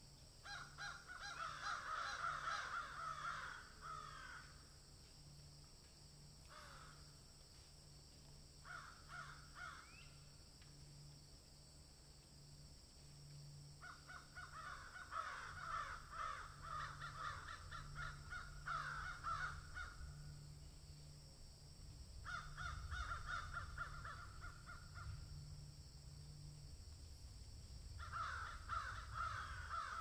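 Harsh, rasping animal calls in repeated bouts, some short and some running several seconds, with quiet gaps between.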